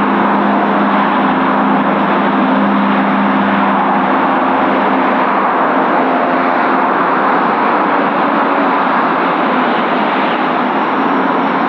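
A CASA C-295's twin turboprop engines running while the aircraft taxis: a loud, steady drone with a low propeller hum that fades about halfway through.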